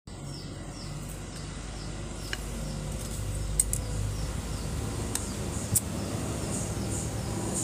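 A few sharp metallic strikes, two of them loudest, as an oil-hardened machete blade chops at a steel nail held in pliers on a wooden block, a test of the blade's hardness. Under them run a steady low hum and a quick row of small high chirps.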